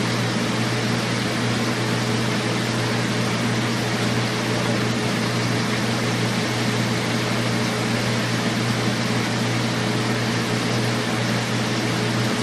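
Steady mechanical hum with a low drone and an even hiss, as of a fan or ventilation unit running.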